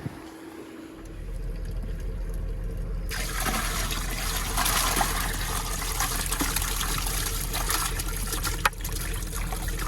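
Water pouring and trickling steadily, starting suddenly about three seconds in, over a low steady hum.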